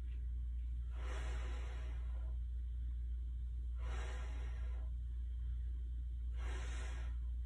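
A woman breathing with exertion during a floor exercise: three long, breathy exhales about two and a half to three seconds apart, over a steady low hum.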